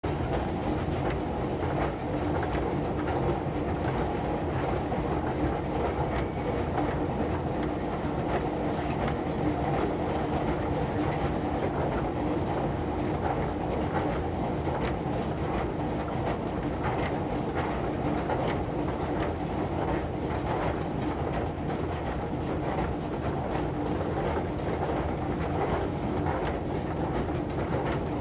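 Escalator running steadily: a continuous mechanical hum with a steady low tone, overlaid by faint, irregular clicking and rattling.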